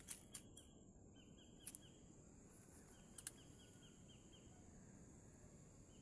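Near silence: faint outdoor ambience with trains of short, quick chirps, about six a second, and a thin steady high whine, typical of insects. There are a few faint clicks in the first half.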